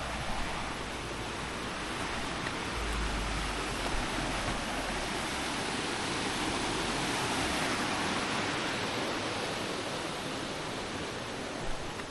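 Rushing water of a rocky valley stream, a steady hiss that swells a little in the middle, with a low rumble of wind on the microphone during the first half.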